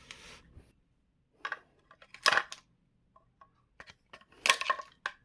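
Metal tools and small metal parts clinking and clattering in short, uneven bursts as a mixer grinder's housing screws are worked loose, with the loudest clatters about two seconds in and near the end.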